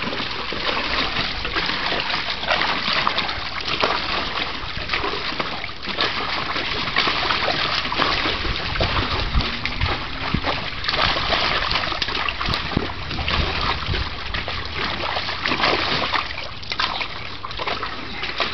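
A bulldog wading in a shallow plastic kiddie pool, splashing and churning the water with its legs and muzzle in a steady, continuous run of splashes.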